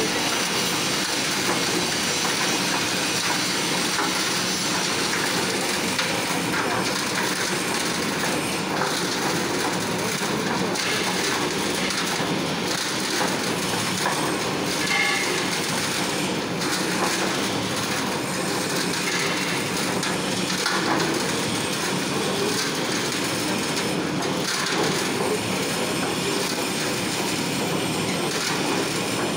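Reversible concrete drum mixer running steadily while it discharges its load of concrete mix, a constant dense machine noise with no clear beat.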